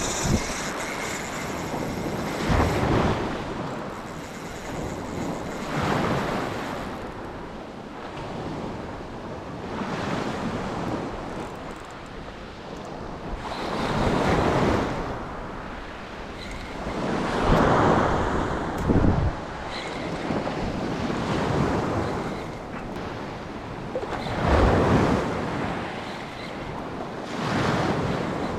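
Ocean waves washing in, each swell rising and falling every few seconds, with wind buffeting the microphone.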